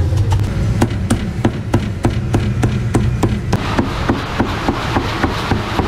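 Meat cleaver chopping roast duck through the bone on a round chopping block: a steady run of sharp chops, about three a second.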